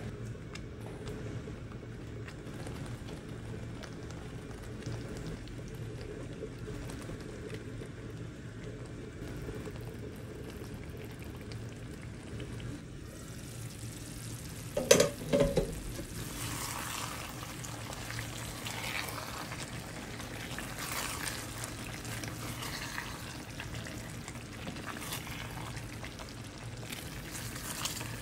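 Meatballs in tomato sauce simmering and bubbling in a frying pan, with a crackly bubbling hiss through the second half over a steady low hum. A loud double knock about halfway through is the loudest sound.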